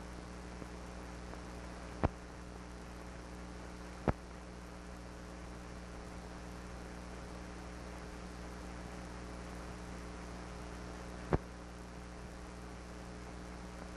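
Steady electrical mains hum and hiss on the soundtrack of an old film transfer with no live sound. Three sharp clicks cut through it, about two, four and eleven seconds in.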